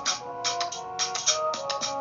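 Background music: a keyboard melody of held notes over a steady beat of bright percussion hits.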